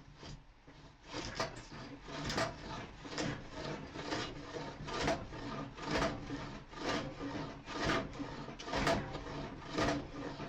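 Hand plane taking repeated strokes across a reclaimed pallet-wood worktop, about one rasping pass a second. The strokes run against the grain, which is taking off too much wood.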